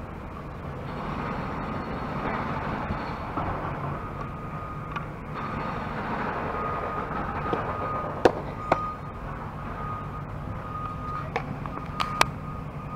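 A softball smacks into a catcher's mitt about eight seconds in, two sharp pops close together, and two fainter ones near the end. Under them runs a steady background rumble, and a thin high beeping tone comes and goes.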